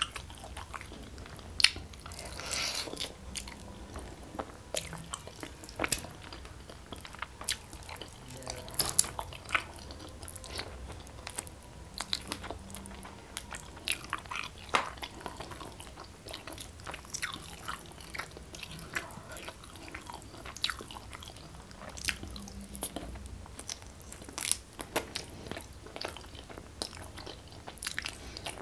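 A person eating close to a clip-on microphone: biting and chewing saucy chicken rica-rica, with wet mouth sounds and many irregular sharp clicks and crunches.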